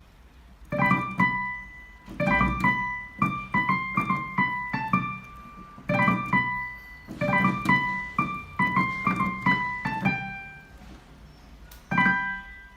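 Piano-like keyboard music: a melody of short struck notes over low chords, thinning out near the end before one last chord.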